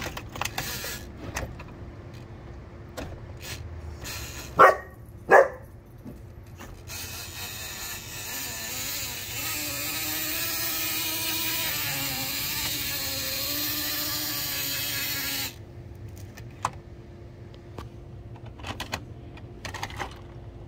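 Plastic clicks and knocks from a toy car wash playset being worked by hand, with two sharp louder sounds a few seconds in. Then a steady whirring hiss for about eight seconds, starting and stopping abruptly.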